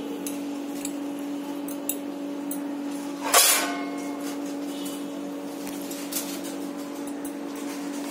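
A steady low hum, with a few faint clicks and one short clatter about three and a half seconds in, the loudest moment.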